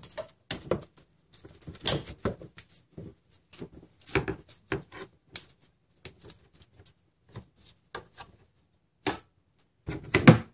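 Flat-head screwdriver prying and clicking against the parking brake lever, return spring and cable end on a rear brake caliper. Irregular metal clicks and scrapes, with a few louder knocks.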